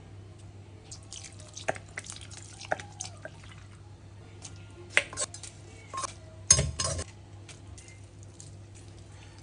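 Kitchen utensils and dishware clinking and knocking against pots and dishes: a scatter of separate clinks, loudest about two thirds of the way through, over a low steady hum.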